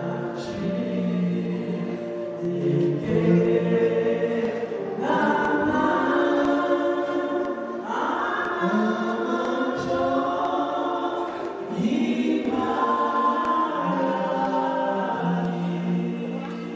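A woman singing a slow gospel song into a microphone, in phrases of two to three seconds with long held notes.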